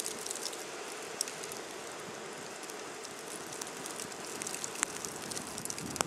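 Blizzard wind with blowing snow: a steady hiss, with a few faint scattered ticks.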